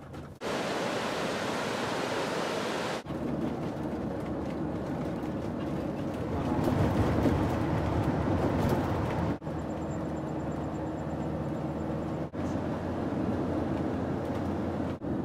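Engine and road noise inside a moving vehicle's cabin, a steady rushing hum with a low engine drone, broken by abrupt cuts every few seconds. It is louder for a few seconds in the middle, while driving through a tunnel.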